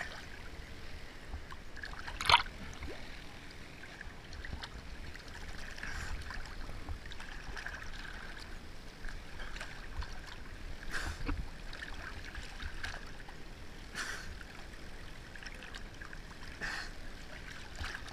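Steady sound of moving water, trickling and lapping, over a low rumble. A few brief sharp sounds break in, the loudest about two seconds in.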